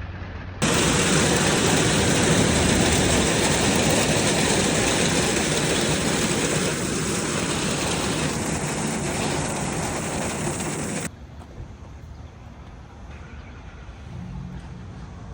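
Heavy rain coming down hard, a loud steady hiss that starts abruptly about half a second in and cuts off sharply near the end, leaving only a faint background hiss.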